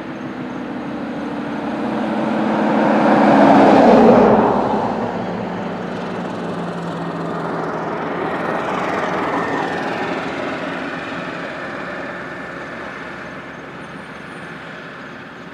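A motor vehicle passing close by. Its engine hum and road noise build to a peak about four seconds in, then fall away as the engine note drops in pitch. A second, fainter vehicle swells and fades around eight to ten seconds in.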